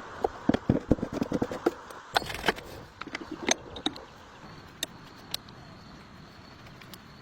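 Irregular knocks, clicks and scraping from hands-on work, busiest in the first four seconds, then only a few sharp clicks.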